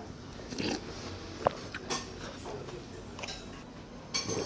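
Tableware and eating sounds: a metal spoon clinking against dishes, with one sharp ringing clink about one and a half seconds in, and short soft eating and sipping noises between.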